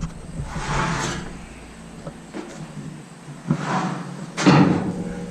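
Knocks and thumps of gear being handled, with scraping between them and a loud thump about four and a half seconds in, over a steady low engine hum.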